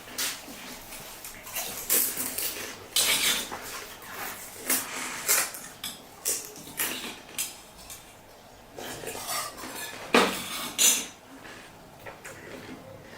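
Dishes and cutlery clinking and scraping while pani puri is eaten, a string of short sharp clicks and crunches, the loudest about 2, 3 and 5 seconds in and twice more around 10 to 11 seconds in.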